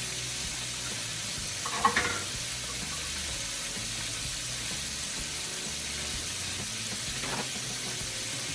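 Steady sizzling of sliced salt pork belly frying in hot oil in a pot. A brief louder sound about two seconds in.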